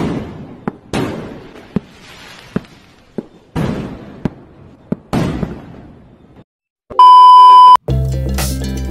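Firework sound effects: a run of sharp bangs, several of them trailing off in a long fading hiss. After a short gap comes a loud steady beep lasting under a second, and then music begins.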